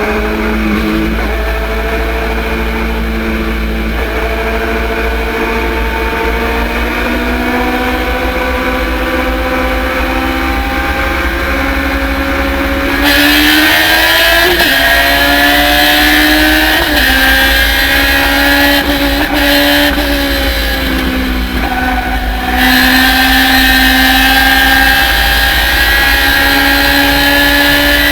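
Thunder Roadster race car's engine at full throttle, its pitch climbing slowly and steadily for about thirteen seconds. A louder rushing noise then joins in, and the engine drops in pitch twice as the driver lifts and brakes before pulling hard again.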